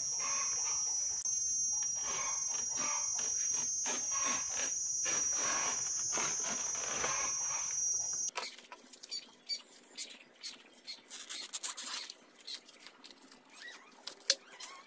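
Fresh banana leaves crackling and rustling as a cleaver slices the midribs away and the leaves are handled, over a steady high insect drone. About eight seconds in the sound cuts off abruptly, and after that there are only fainter, scattered leaf crackles and knife taps.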